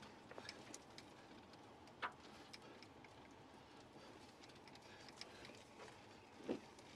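Near silence inside a moving car's cabin, with faint scattered ticks and two brief knocks, one about two seconds in and a softer one near the end.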